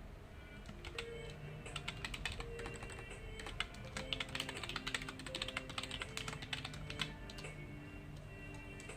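Typing on a computer keyboard: irregular key clicks that come fastest in the middle and thin out near the end, over soft background music of held notes.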